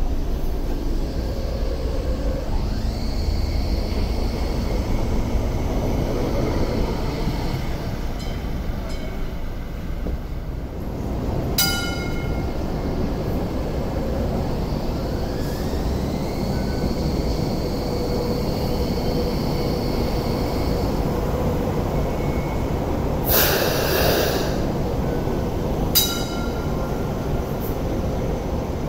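Hong Kong MTR Light Rail trains running through a stop: a steady rumble of wheels and motors with a faint electric whine that rises around the middle. Two sharp metallic clicks ring out, and a loud hiss lasts about a second near the end.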